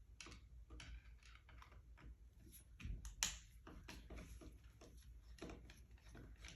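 Faint, scattered clicks and light knocks of hands and a tool working on the seat's metal fasteners, with a sharper click about three seconds in.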